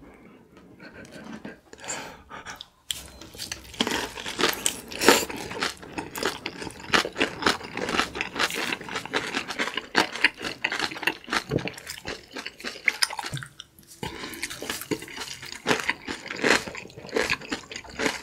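Close-miked eating sounds: two people chewing kimchi-wrapped instant noodles, crisp crunches of the napa cabbage kimchi among wet, irregular chewing. Quieter for the first few seconds, with a short lull about fourteen seconds in.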